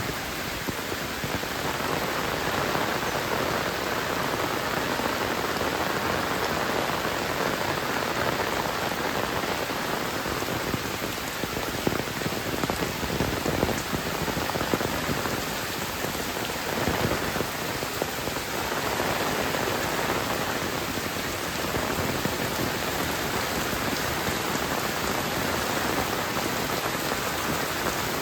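Heavy rain falling steadily: a dense patter of drops hitting surfaces, a little heavier and more spattery in the middle.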